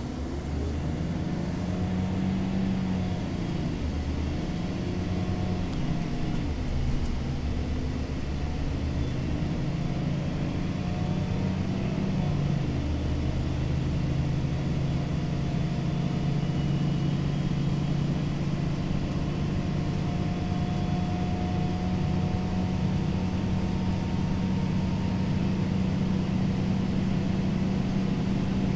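Cummins ISL straight-six diesel of a 2008 Gillig Phantom transit bus running at highway speed, heard from inside the bus. The engine note shifts a few times in roughly the first twelve seconds, then holds steady, over road and tyre noise.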